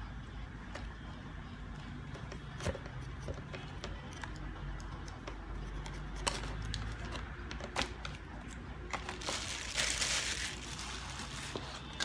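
Plastic packaging crinkling, with small clicks and knocks as parts are handled, and a longer, louder rustle about nine to ten seconds in.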